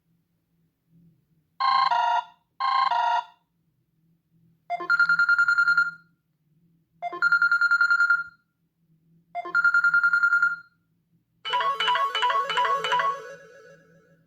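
Stock ringtones of a Samsung Galaxy Ace Duos phone playing one after another. First come two short chiming bursts, then three trilling rings about two seconds apart, each held on one tone, and near the end a different short melody starts.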